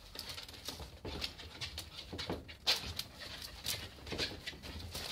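West Highland white terriers moving about on a metal-topped table: a scattering of short taps and scrabbles from their claws, with small dog noises among them.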